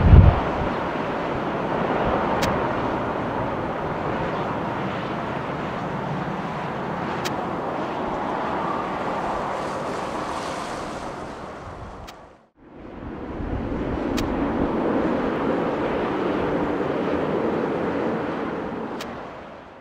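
Steady rushing roar of jet airliner engines heard at a distance. It fades and cuts out briefly about twelve seconds in, then builds again.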